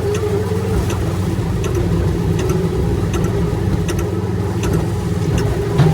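Large excavator's diesel engine running steadily, with scattered short clicks over the drone.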